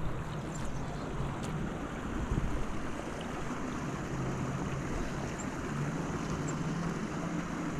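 Steady rush of flowing creek water with wind buffeting the microphone, over a faint low hum.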